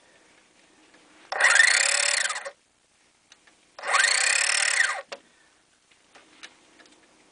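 Small Escap DC gearmotor with steel gears driving a lead-screw linear actuator at high speed, in two bursts about a second long each. In each burst the whine rises in pitch as the motor spins up and falls as it stops.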